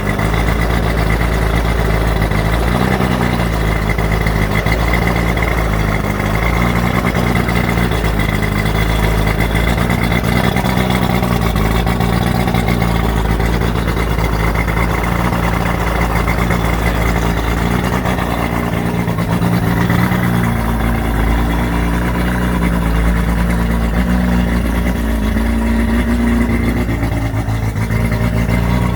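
Boat engine running steadily at a low idle, its revs rising and falling slightly every few seconds.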